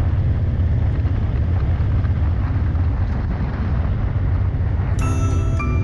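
Motorcycle cruising at a steady speed: the engine's steady low hum with wind and road noise. Music comes in near the end.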